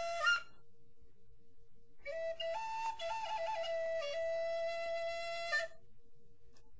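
Solo flute melody playing as background music in slow phrases: a held note ends just after the start, then a phrase of stepping notes runs from about two seconds in to near six seconds, followed by a pause. A faint steady hum sits underneath.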